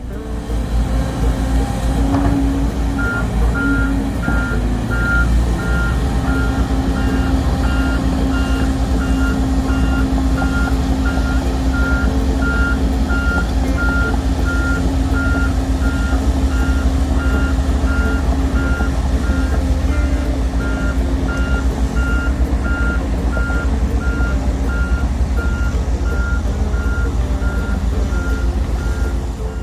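Heavy construction machine's diesel engine running, with a back-up alarm beeping at an even pace that starts a few seconds in: the machine is reversing or travelling.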